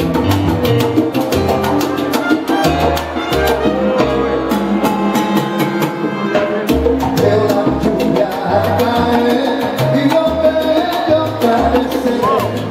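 Salsa band playing live: a repeating bass line under congas and other percussion, with brass horns.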